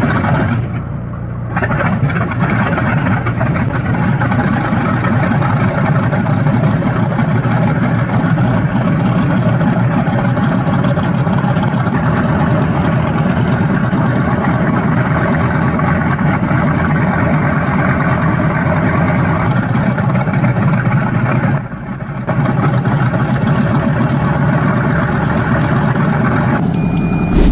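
Aircraft engine running steadily after a cold start. The engine note dips briefly about a second in and again about 22 seconds in.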